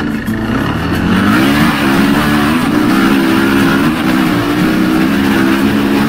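KTM dirt bike engine running under the rider as the bike moves along. It revs up in pitch twice, about one and two and a half seconds in, then holds a steady speed.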